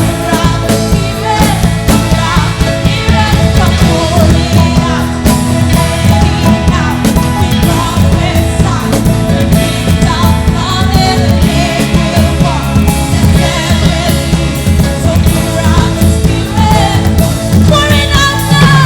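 Loud full-band rock-style music with singing.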